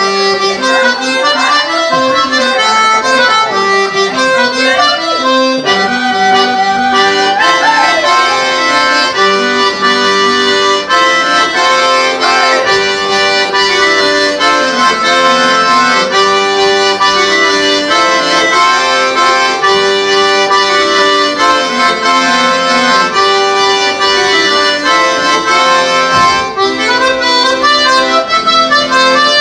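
Traditional Breton dance music, a continuous instrumental tune accompanying the dancers.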